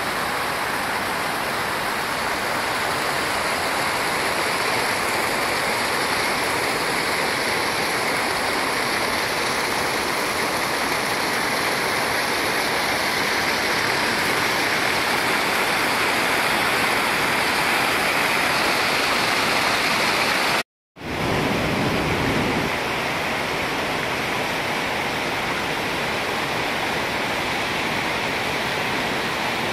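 Floodwater pouring over a concrete dam spillway and weir, a steady rush of falling and flowing water. The sound cuts out for a moment about two-thirds of the way through, then carries on as before.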